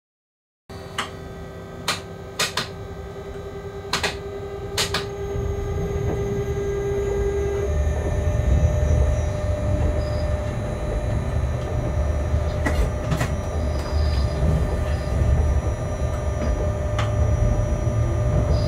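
Locomotive cab sound while running light over yard switches. The sound cuts in just after the start, with sharp wheel clacks over rail joints and points in the first five seconds, a steady hum that steps up in pitch about eight seconds in, and a low rumble that grows louder.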